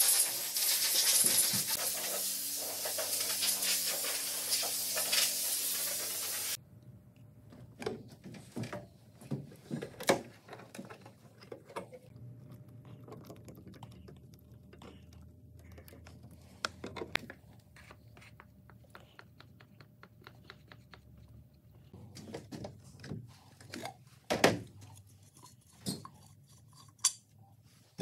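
Compressed-air blow gun hissing steadily as it blows dust off a primed plastic bumper, cutting off abruptly about six seconds in. After that, scattered light clicks and knocks as paint is stirred with a stick in a plastic cup.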